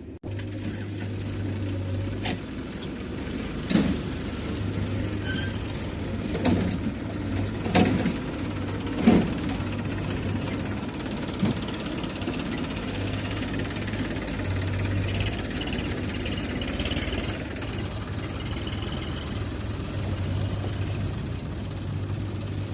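Diesel engine of a JCB 3DX backhoe loader running steadily, with five sharp knocks between about four and eleven seconds in.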